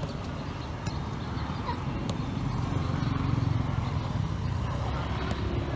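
Outdoor ambience at a football pitch: a steady low rumble with a few sharp knocks of a football being kicked, about one, two and five seconds in.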